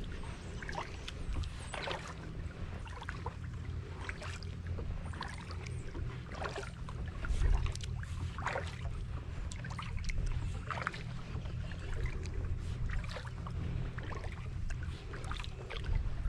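Kayak paddle strokes dipping and splashing into the water about every two seconds, over a steady low rumble.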